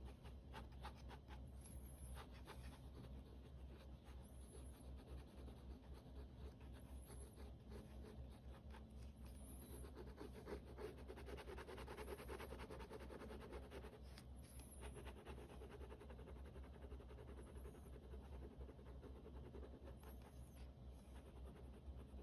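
Faint scratching of a ballpoint pen on sketchbook paper, drawing many quick, short strokes to build up strands of hair; the strokes are busiest around the middle.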